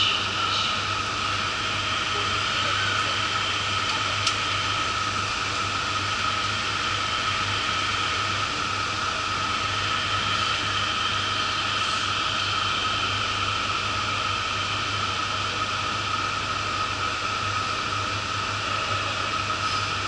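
Steady hum and hiss inside a standing Yurikamome rubber-tyred automated train, its onboard equipment and ventilation running, with a steady high whine over it and a faint click about four seconds in.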